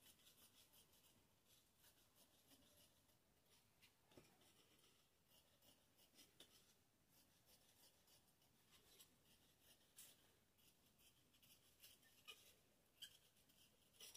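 Very faint, irregular snips and rasps of scissors cutting through fabric, with a few sharper clicks of the blades near the end.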